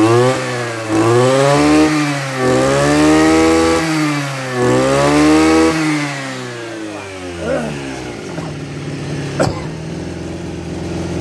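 Robin NB260 brush cutter's 26 cc two-stroke engine being revved in four throttle blips, the pitch rising and falling each time, then settling to idle about seven seconds in. A single sharp click comes a couple of seconds after it settles.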